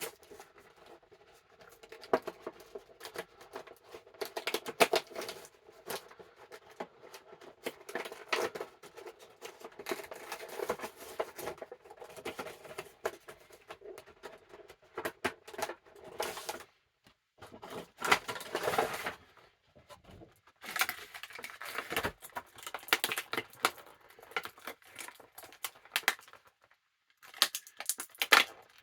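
An action figure's cardboard and plastic packaging being opened by hand: irregular tearing, rustling, crinkling and clicks, with short pauses between bursts.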